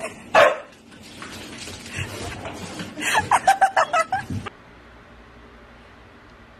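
A person laughing: one loud burst just after the start, then a quick run of ha-ha bursts about three seconds in. It cuts off suddenly about four and a half seconds in, leaving a faint steady hiss.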